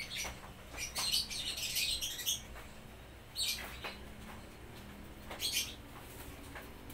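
Small birds chirping in short bursts, four or five times, over a faint steady low hum.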